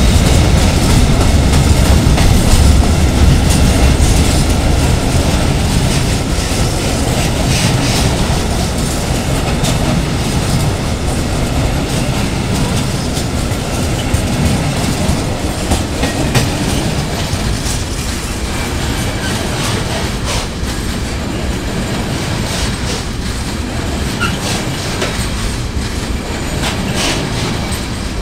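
Freight train wagons rolling past, wheels clacking over rail joints with a low rumble that slowly fades as the last wagons go by.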